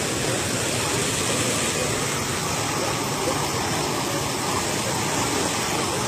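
A thick column of water pouring onto bare dirt ground, a steady rushing splash with no let-up.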